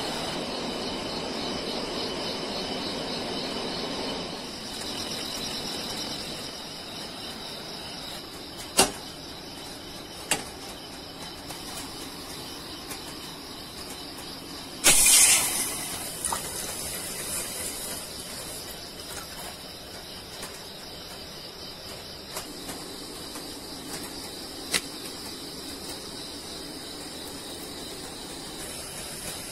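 A steady chorus of chirping insects, pulsing in the first few seconds, with a few sharp clicks and knocks of kitchenware. About halfway through there is one brief loud hiss.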